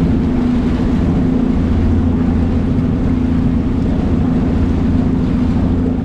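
Bass boat's outboard motor running steadily under way, a constant engine drone. It drops off sharply right at the end as the throttle comes back.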